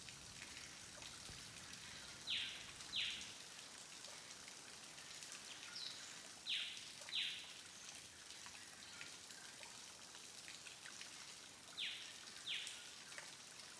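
A bird calling three times, each call a pair of quick falling notes, over a faint steady hiss of background ambience.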